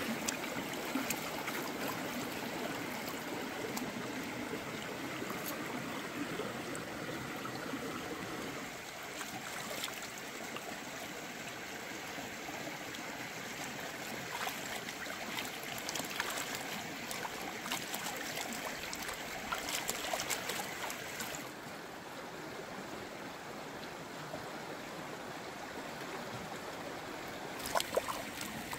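Shallow stream flowing and trickling over rocks, with a few light clicks now and then.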